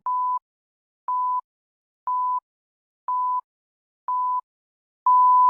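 Countdown timer beeps: five short electronic beeps of one steady pitch, one each second, then a longer, louder final beep of the same pitch near the end, marking the start point for syncing.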